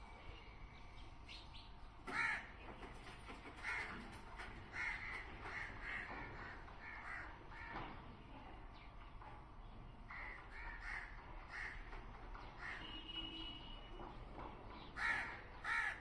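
Crows cawing: a series of short harsh calls, some in quick runs of several, the loudest about two seconds in and again near the end.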